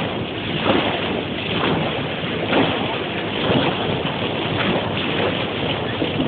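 Water rushing and splashing along the bow of a moving boat, with wind buffeting the microphone.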